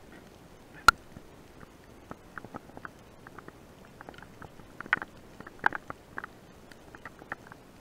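Irregular sharp clicks and crackles heard underwater, with one louder click about a second in and a denser run of clicks around the middle.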